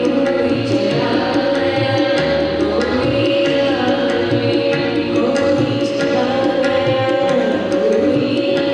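Devotional bhajan: a woman singing into a microphone over a steady harmonium drone, with regular hand-drum strokes keeping the beat.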